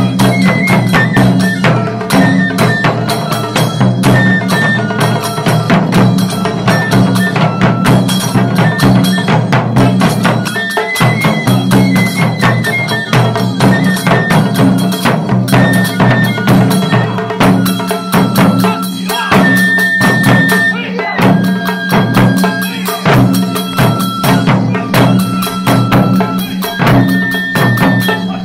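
Japanese taiko ensemble playing: fast, steady strokes on rope-tensioned okedo drums, with small brass hand cymbals and short high held notes stepping in pitch above the drumming.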